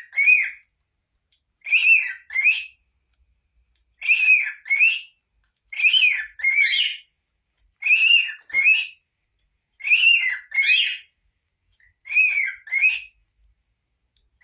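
Cockatiel whistling the same short two-note phrase over and over, about seven times, roughly every two seconds.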